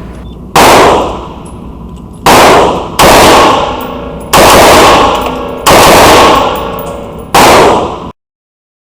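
Six gunshots, most likely from a pistol, fired at uneven intervals, each ringing out with a long echo before the next. The sound cuts off suddenly near the end.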